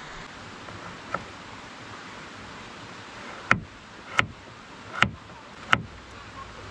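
Kitchen knife chopping vegetables on a wooden cutting board: a light knock about a second in, then four sharp knocks about three-quarters of a second apart. Behind them, a steady rush of water.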